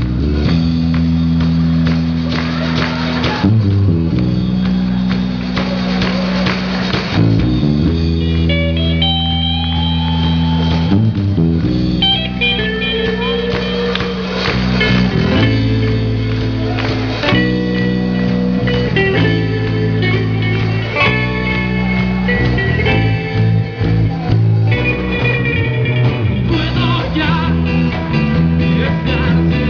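Live rock band playing: electric guitars over bass and drums, with held low chords changing every few seconds and a melodic line coming in above them about eight seconds in.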